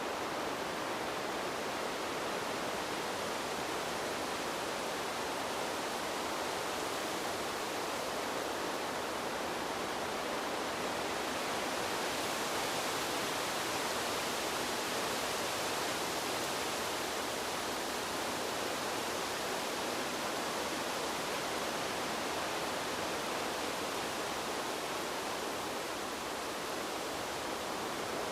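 Steady rushing wind, an even hiss without gusts or breaks that swells a little about halfway through.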